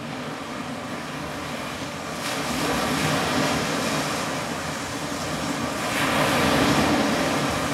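A steady, low rushing rumble fading in from silence and swelling about two seconds in and again about six seconds in.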